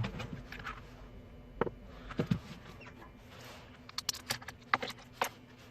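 A string of separate sharp clicks and light taps from small hard parts being handled on a work surface, with several close together about four seconds in.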